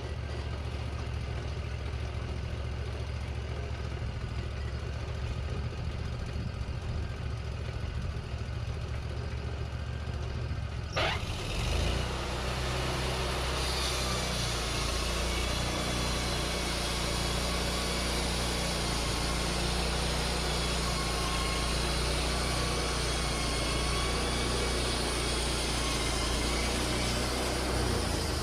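Wood-Mizer LT40 band sawmill: its engine runs steadily, then after a click about eleven seconds in, the band blade starts up and the mill runs louder and higher-pitched through a cut in a white pine log, stopping near the end.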